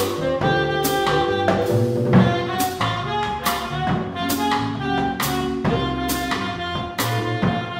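Small live jazz combo playing: a reed instrument holds the melody in long sustained notes over keyboard, upright bass and drum kit, with regular cymbal strokes about every second.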